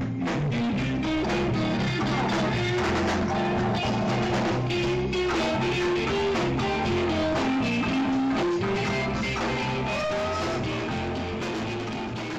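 Live rock band playing an instrumental stretch, a guitar line over a drum kit, with no singing.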